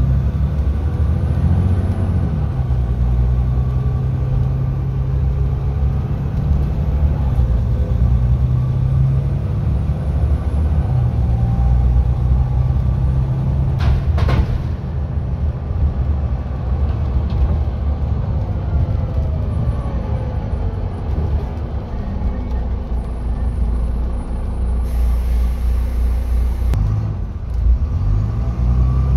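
Volvo B9TL tri-axle double-decker bus heard from the upper deck while under way: its 9-litre six-cylinder diesel engine runs steadily, its note rising and falling. A single sharp knock comes about halfway through.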